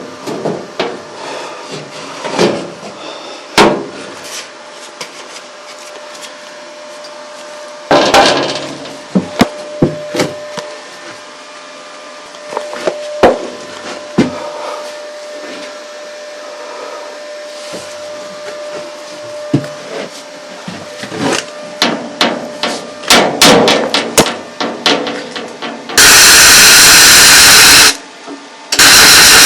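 Steel plate being knocked and hammered into place in a narrowboat's steel bulkhead: irregular metal knocks and clanks. Near the end come two loud, harsh bursts of noise, the first about two seconds long and the second shorter.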